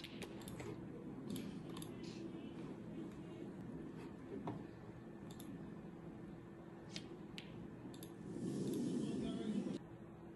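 Sharp clicks of snooker balls striking one another, a few scattered through, over a low steady hum. About eight seconds in there is a burst of noise lasting about a second and a half.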